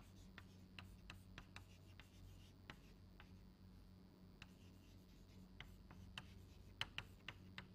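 Faint taps and scratches of chalk on a blackboard as words are written, irregular short clicks over a steady low hum.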